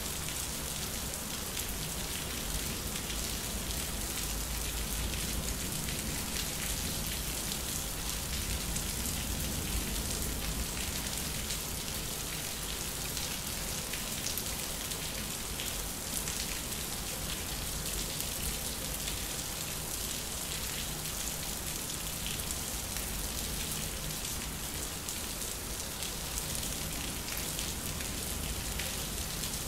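Steady rain falling and spattering on the hard concrete ground of a backyard during a thunderstorm.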